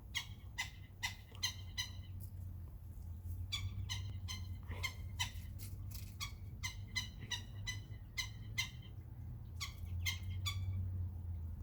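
Woodpecker calling: repeated short, sharp call notes, about two a second, in runs of several with brief pauses between them, over a steady low hum.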